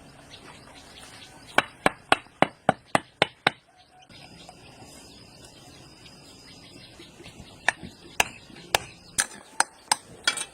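A hand tool striking in two runs of sharp blows, about three a second, the first run a couple of seconds in and the second near the end.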